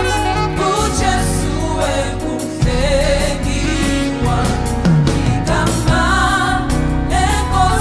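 Gospel choir of mixed men's and women's voices singing in harmony over a band with a heavy bass line and drums.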